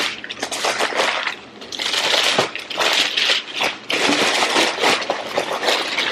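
Sheets of tissue paper packing being pulled out of a package and crumpled by hand: continuous crinkling and rustling, with a short lull about a second and a half in.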